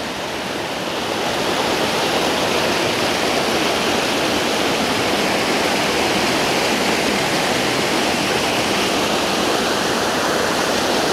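Small creek waterfall close by, water rushing and splashing steadily.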